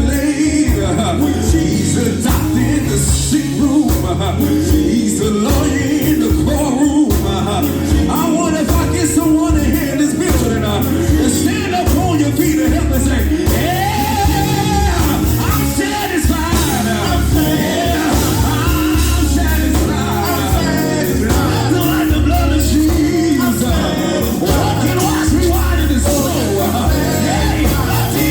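Live gospel band playing a country-style song with bass and singing over it, one note held for about a second near the middle.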